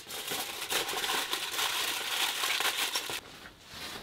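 Aluminium foil crinkling as it is handled and pressed over a metal pan; it stops suddenly about three seconds in.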